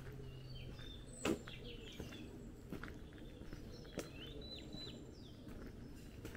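Small songbirds chirping and twittering in short high phrases, over slow footsteps on a tarmac lane, about one step every two-thirds of a second. One sharp, much louder knock comes about a second in.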